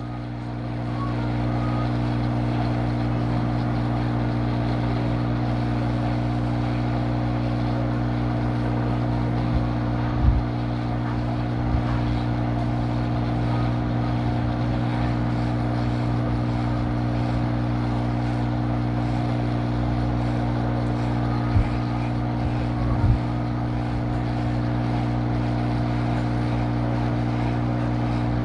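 Hot air rework station blowing hot air onto a laptop motherboard, its airflow turned down to setting 5.5: a steady blower whir with a low hum, building up over the first second or so. A few faint clicks in the middle.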